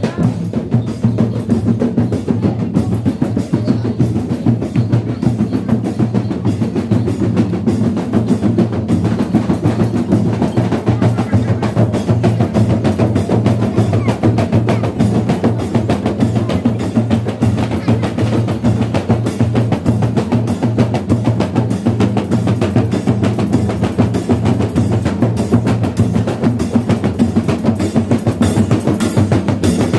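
An ensemble of large hand-struck frame drums (rebana, called rawana in Mandar) played together in a fast, dense, unbroken rhythm: the drumming that accompanies the dancing horse.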